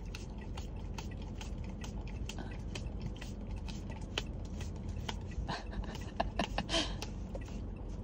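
Basset hound licking whipped cream from a small paper cup: wet lapping clicks about three a second, with a few sharper clicks and squeaks between five and seven seconds in, over a steady low hum.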